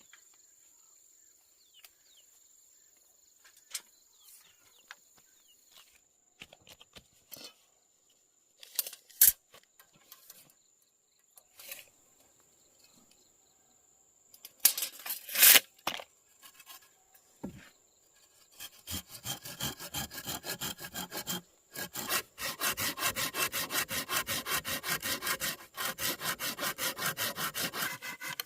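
Hand saw cutting wood in fast, even back-and-forth strokes through the last third, with one brief pause partway. Before it come scattered knocks and taps of wood being handled, two of them sharp and loud.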